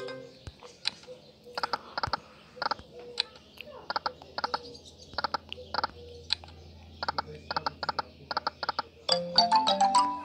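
Online slot game sound effects: repeated bursts of quick clicks as the reels spin and stop. About nine seconds in, a short stepped chiming jingle plays as a small cherry-line win lands.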